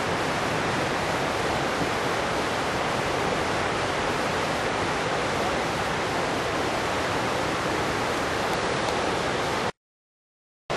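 Fast river water rushing, a steady hiss, broken by a sudden drop to silence for about a second near the end.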